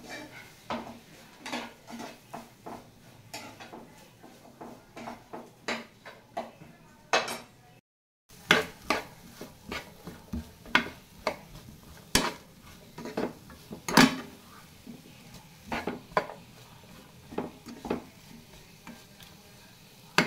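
A steel spoon scraping and clinking against a non-stick frying pan in irregular strokes, about one or two a second, as onion, grated coconut and whole spices are stirred while roasting. There is a brief break in the sound about eight seconds in.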